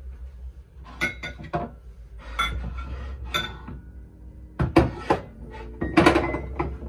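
Coffee mugs clinking and knocking against each other and the cabinet shelf as they are moved, a series of sharp clinks, some with a brief ring, loudest in a cluster a little before five seconds in and again about six seconds in.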